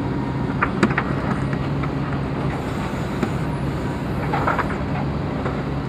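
Heavy construction machine's diesel engine running steadily, with a couple of short knocks about a second in.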